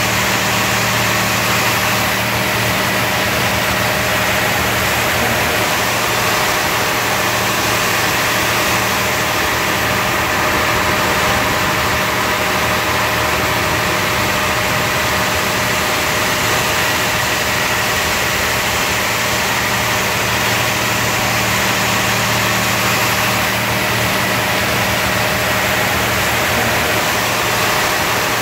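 Robowash touchless car wash in its high-pressure wash stage: jets of water spraying steadily onto a car's front, over the steady hum of the wash machinery.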